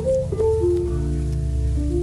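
Instrumental background music: a slow melody of held notes over a steady low bass.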